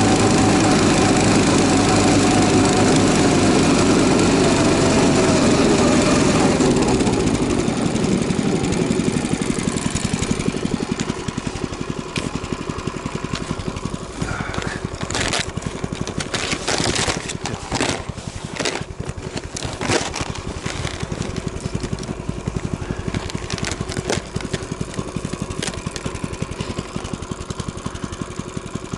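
Albatros motodog's four-stroke engine running under load, then falling in pitch and settling to a quieter idle about seven seconds in. Scattered knocks and clicks sound over the idling engine.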